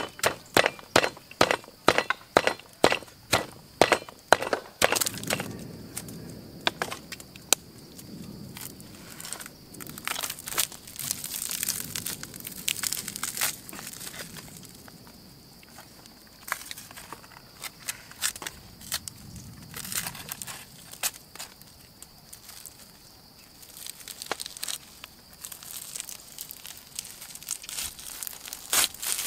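Stone pestle pounding in a stone mortar, sharp knocks about three a second for the first five seconds, crushing chilies and salt into a paste. After that come softer, scattered crackles and tearing as roasted snake meat with its charred skin is pulled apart by hand.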